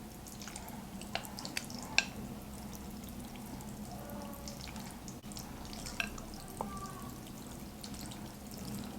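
Instant fire noodles thick with sauce being stirred and mixed in a bowl: a soft, wet, sticky churning with a few sharp clicks of the utensil against the bowl.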